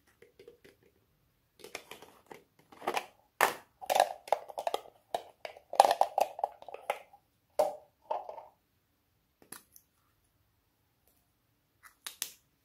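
Hard plastic novelty containers being handled and opened: rattling, clicking and scraping of plastic parts in dense clusters through the middle, then a few short clicks near the end.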